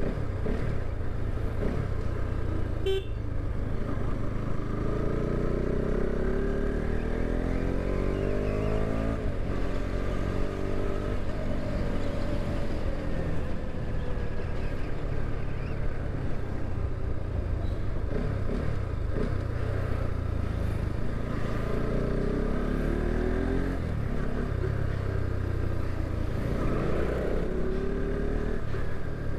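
Bajaj Pulsar RS 200's single-cylinder engine running under way, its pitch rising and falling as the bike accelerates and eases off, over a steady low rumble. There is a short horn beep about three seconds in.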